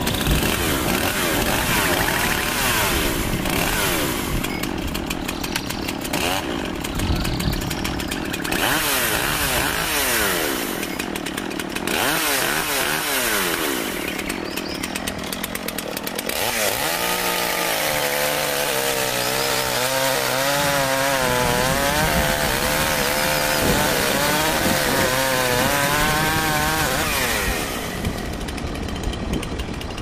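Chainsaw engines running and cutting, the pitch rising and falling as they rev. In the second half a steadier engine note with a wavering pitch stands out.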